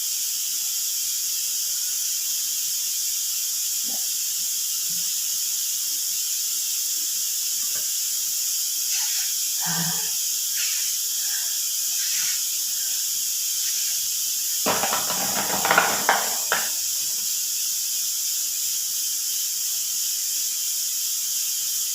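Steady high-pitched hiss, with a few brief scraping or handling noises; the loudest of these come about two-thirds of the way in.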